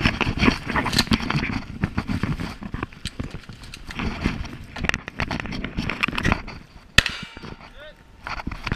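Footsteps crunching and rustling through dry leaf litter, with gear rattling in irregular clicks, and one sharp crack about seven seconds in.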